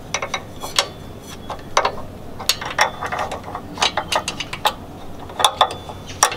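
Irregular metallic clicks and taps of a socket wrench extension knocking against the rear suspension parts as it is worked between the sway bar and differential.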